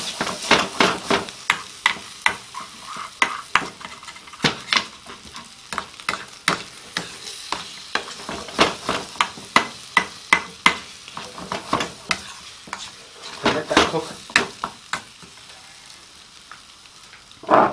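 A metal spoon stirring and scraping eggs and curry around a frying pan, with irregular clinks and scrapes against the pan over the sizzle of frying on high heat. The stirring thins out near the end, apart from one last louder scrape.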